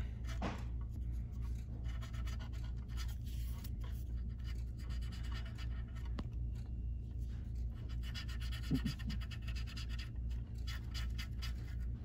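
Acetone-dampened cotton swab scrubbing back and forth over a circuit board's surface-mount parts: a quick, continuous scratchy rubbing. A steady low hum sits underneath.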